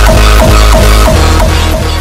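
Electronic music with a heavy deep bass and a fast, regular drum beat, starting to fade out near the end.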